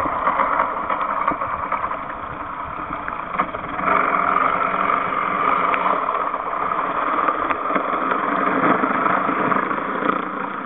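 Steady muffled drone recorded underwater, with an engine-like hum under it and a few faint clicks. It gets a little louder about four seconds in.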